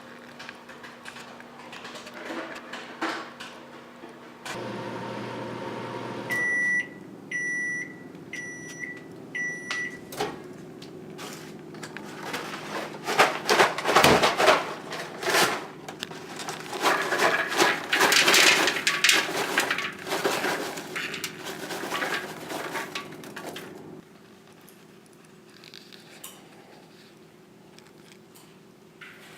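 Microwave oven making popcorn: four short high beeps about a second apart, then a steady hum as it runs, with dense crackling pops of popcorn that peak in the middle. The hum cuts off about 24 seconds in.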